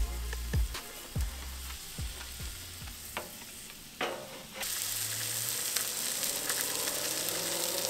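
Butter-basted whole fish sizzling on a charcoal grill, a steady hiss that comes in suddenly about halfway through. Before it, soft background music with a slow low beat and a few light clicks.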